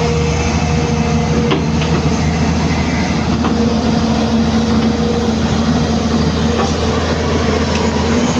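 Hyundai 215 excavator's diesel engine running steadily under working load, a continuous low drone with a couple of steady tones that shift slightly in pitch and a few faint knocks.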